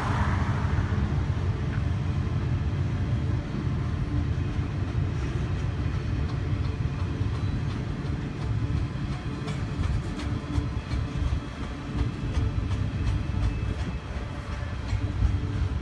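Double-stack container train's well cars rolling past: a steady low rumble of wheels on rail, with sharp clicks of the wheels over the track joints.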